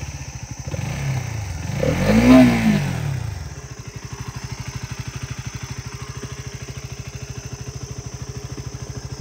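KTM Duke 200's single-cylinder engine, just started, revved twice (a short blip, then a bigger rev about two seconds in) and then settling into a steady idle. Freshly repaired, it is running smoothly without the ticking and clicking engine noise it had before the repair.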